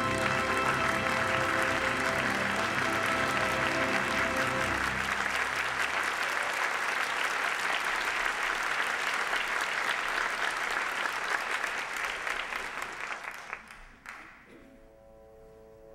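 An orchestra holds a closing chord for about five seconds as audience applause breaks in. The applause carries on alone, then dies away near the end, and soft orchestral music begins.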